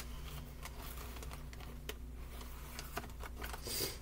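Handling of a cardboard seasoning box and its packets: scattered light taps and clicks, with a short crinkly rustle just before the end, over a low steady hum.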